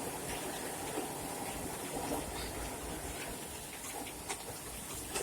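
Steady rain falling, with scattered sharp drops striking nearby surfaces.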